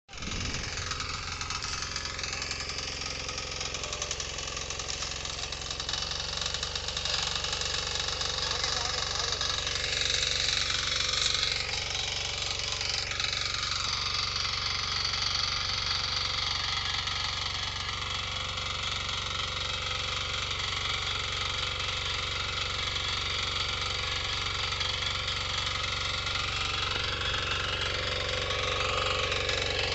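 KisanKraft 350D walk-behind power tiller's engine running steadily under load as its tines and ridger work the soil, earthing up sugarcane rows.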